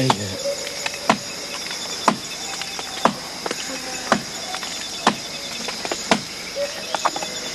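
A blade hacking into the bark of a standing tree trunk, with sharp chops about once a second. A steady high chorus of crickets and other insects runs beneath.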